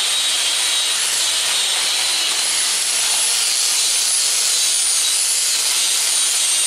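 Handheld grinder running steadily under load, a high whine over a dense hiss, its pitch dipping and recovering slightly as it is pressed into the metal.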